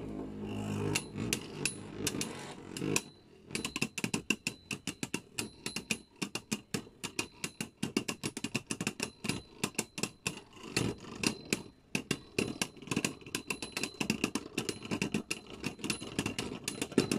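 Two spinning Beyblade Burst tops rubbing and knocking against each other in a clear plastic stadium: a rapid, irregular stream of sharp clicks and ticks that grows dense about three seconds in.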